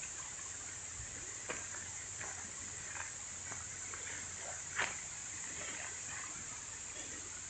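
Steady high-pitched chorus of insects such as crickets, with scattered short clicks, the loudest about five seconds in.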